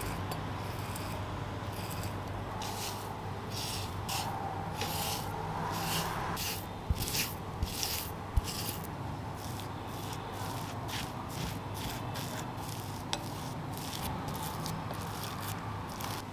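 Potato grated on a handheld grater into a glass bowl: a long run of quick, repeated strokes. A few sharp knocks come around the middle, then more short strokes as a silicone spatula mashes and scrapes the potato against the glass bowl.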